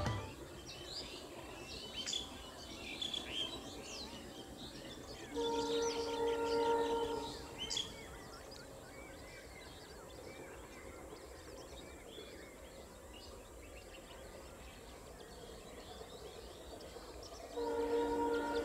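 Locomotive horn of an approaching express train, a steady chord of several tones, sounding for about two seconds a few seconds in and again near the end. Birds chirp throughout.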